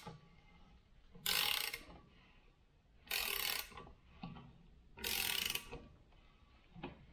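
Socket ratchet clicking in three slow strokes about two seconds apart, loosening a nut.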